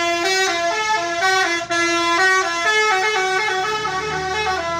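Bus basuri 'telolet' horn, a multi-trumpet musical horn, playing a quick tune of short notes that step up and down in pitch.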